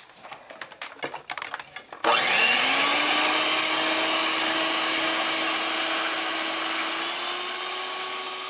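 Electric hand mixer with a whisk attachment beating egg whites in a plastic bowl: a few clicks and knocks, then the motor starts abruptly about two seconds in, spins up, and runs as a steady whine, stepping slightly higher in pitch near the end.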